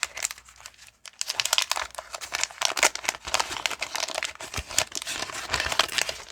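Wax-paper wrapper of a 1989 Fleer baseball card pack being torn open and crumpled: a dense run of crackling with a brief pause about a second in.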